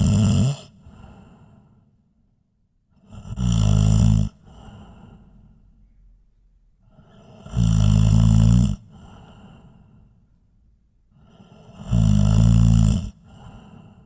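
A person snoring loudly: a low, rattling snore about a second long followed by a softer breath, repeating about every four seconds, three full snores after one that ends just as the sound begins.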